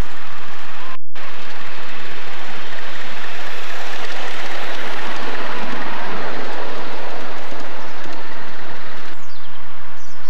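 Miniature steam train with ride-on passenger cars running close past, a rushing noise of wheels on rails and steam. It swells as the train goes by, about six seconds in, and drops away sharply near the end.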